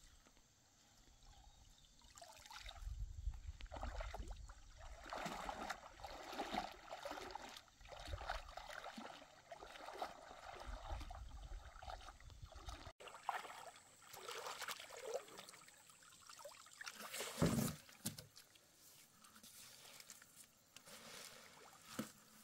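Lake water splashing and trickling in irregular bursts, as from water being stirred and dripping off a net or boat, with one louder thump about seventeen seconds in.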